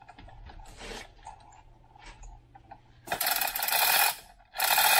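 Manual chain hoist being worked by its hand chain: a few light chain rattles, then from about three seconds in two loud runs of fast ratcheting clatter as the chain is pulled through the hoist.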